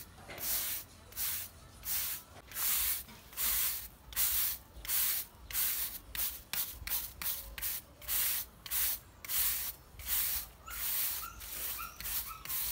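A brush stroked back and forth over a surface, each stroke a short scratchy hiss, a little under two a second and coming faster in the middle.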